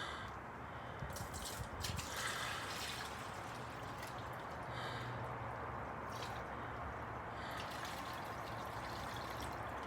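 Water running steadily into a container as it is filled, with a trickling, dripping sound.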